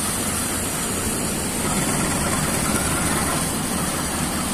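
CC203 diesel-electric locomotive's engine running steadily under power as it pulls a passenger train away from a standstill at low speed.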